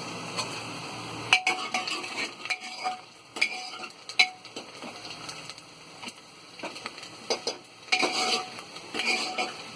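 Chopped onion and green chilli sizzling in hot mustard oil in a pan while being stirred, with a utensil scraping and clinking against the pan every so often.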